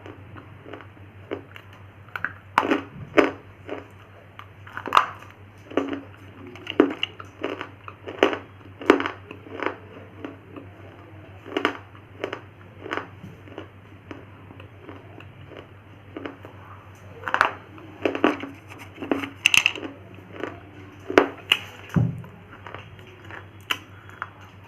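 A person biting and chewing something hard and brittle close to the microphone: sharp crunches come one at a time or in quick clusters, with a few quieter pauses between bites. A steady low hum runs underneath.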